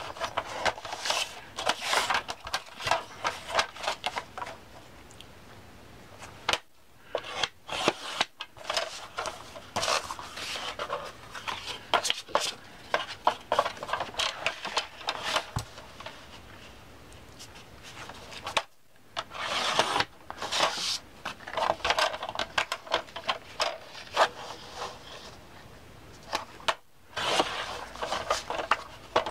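Paper being cut on a sliding-blade paper trimmer and handled: repeated short scraping strokes of the cutter along the rail, with paper rustling between them.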